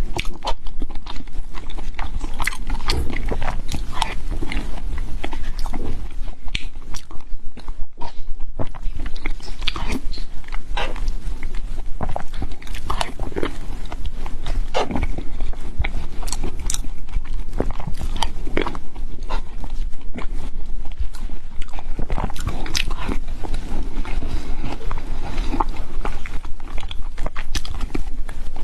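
Close-miked chewing, biting and wet mouth smacks of a person eating black sesame tangyuan (glutinous rice balls), irregular and continuous.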